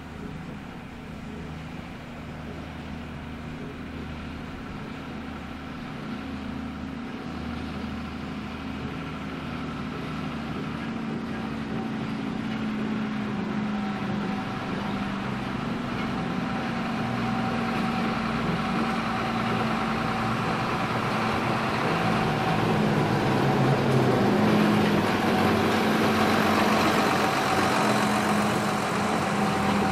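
Two coupled diesel locomotives of a narrow-gauge sugar cane tramway running light engine, their engines growing steadily louder as they approach and pass close by.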